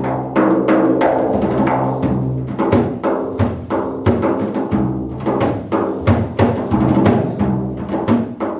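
Instrumental break in a live song: drums struck in a busy, quick rhythm over held low chords from a pitched instrument.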